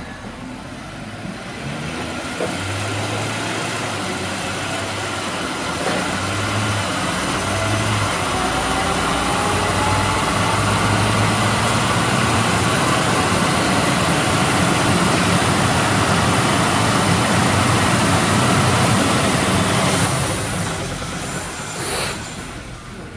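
A 2007 Audi Q7's engine runs in gear with the car up on a lift, turning the drivetrain and free-spinning wheels. The sound builds over several seconds as speed rises, with a faint whine rising in pitch, then holds and eases off about 20 seconds in, with a short sharp sound near the end.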